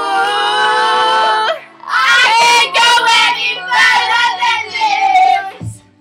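A high female voice singing with no backing: one long held note, then a run of sliding, wordless notes that breaks off just before the end.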